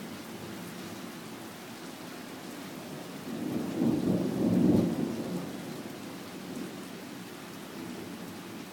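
A rumble of thunder swells about three seconds in, peaks twice and dies away within about two seconds, over the steady hiss of rain.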